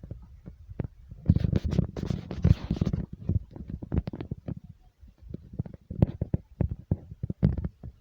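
Low rumbling with a rapid, irregular clatter of knocks and rattles, thickest between about one and three seconds in: things shaking during a strong earthquake.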